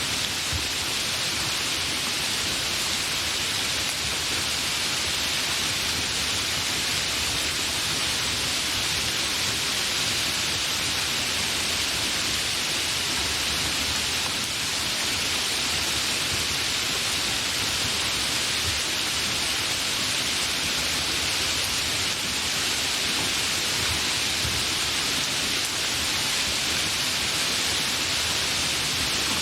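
Continuous steady rain falling, an even hiss with no distinct drops or thunder.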